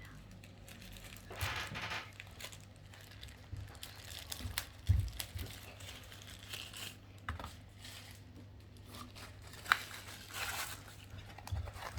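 Plastic packaging crinkling and rustling in irregular bursts as the box contents are handled, with a few light knocks, the sharpest about five seconds in.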